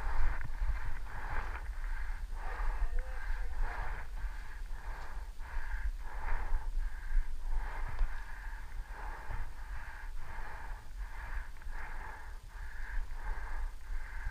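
A person breathing hard in a steady rhythm, short loud breaths a little over one a second, over a constant low rumble.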